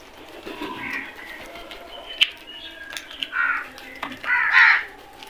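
House crows cawing: a few faint caws about a second in, then two loud caws past the middle, the later one the loudest. A single sharp click comes a little after two seconds.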